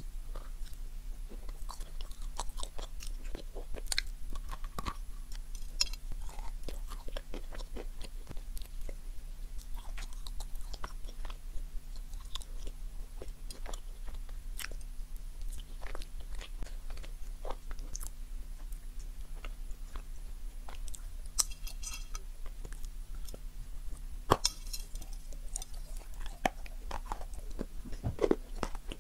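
Close-miked chewing of a crumb-coated marshmallow treat, with many small, sharp crunches.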